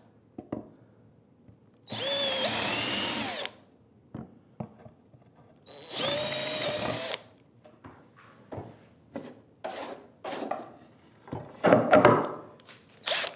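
Cordless drill boring holes through a wooden board: two short runs of a second or so each, the motor whining up to speed at the start of each. Afterwards a series of clicks and knocks from handling the drill and board, loudest in a clatter near the end.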